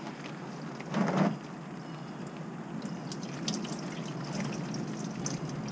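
Hot engine oil pouring out of a Ford F-150 EcoBoost's drain hole and splashing into a plastic drain pan: a steady splattering stream with scattered drips, spreading oil everywhere. A brief louder sound comes about a second in.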